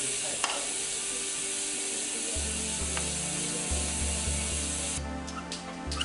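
A steady, rapid ratcheting buzz of a pawl mechanism, with a couple of sharper clicks, that cuts off abruptly about five seconds in. Background music with a low pulsing beat comes in about halfway through.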